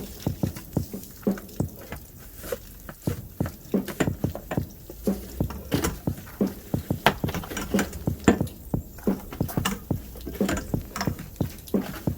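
Irregular patter of short taps and knocks, several a second, from the washing of a truck camper's outside.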